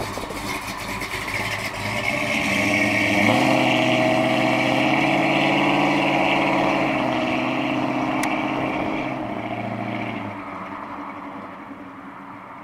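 The 1969 Dodge Coronet Super Bee's 493 cubic inch V8, a bored-out 440 Six-Pack with a hotter camshaft, driving away under power. Its note rises about three seconds in as it accelerates, runs steady, then fades as the car pulls off into the distance.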